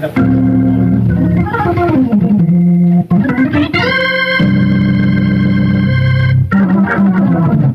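Hammond tonewheel organ being played: held chords, a quick run down the keyboard and another back up, then a long held chord with many bright overtones.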